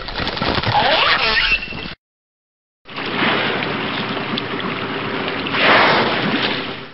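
Whale calls: several short gliding squeals and moans in the first two seconds. After a brief silent cut, a steady rushing water noise follows, with a faint low hum and a louder surge near the end.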